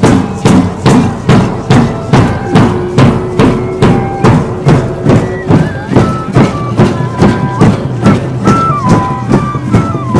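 Traditional procession music: large double-headed wooden drums beaten in a steady beat of about three strokes a second, with a high melody of held notes stepping from pitch to pitch over it.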